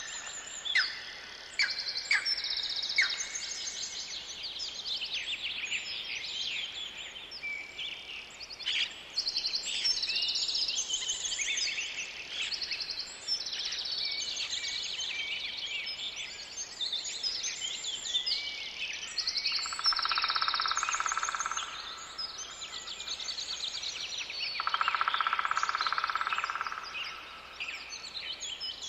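A chorus of several songbirds singing, with overlapping high chirps and trills. Twice, about 20 and 25 seconds in, a lower, rapidly pulsing call lasting a second or two joins in.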